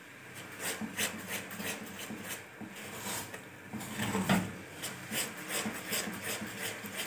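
Silicone spatula stirring and scraping caramel cream sauce around a nonstick pan as it bubbles on the flame, a run of quick, irregular scrapes.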